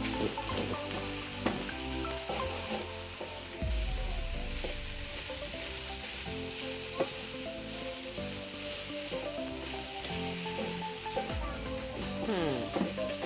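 Chicken pieces coated in ginger-garlic paste sizzling steadily in a pan, frying in their own fat with no oil added, as they are stirred. Background music plays underneath.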